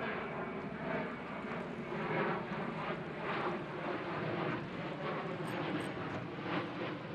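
A steady engine drone with faint even tones, over a wash of wind and water noise that swells and fades every second or so.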